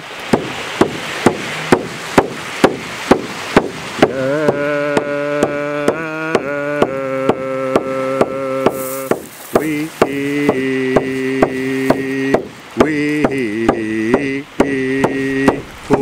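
A hand frame drum struck at a steady beat, a little over two strikes a second. About four seconds in, a voice joins it, chanting long held notes.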